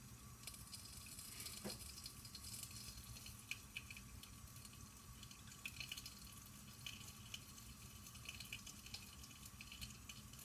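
Melted butter and popcorn kernels sizzling faintly in a hot pan, with a light scattered crackle; the kernels are heating up and have not yet started popping.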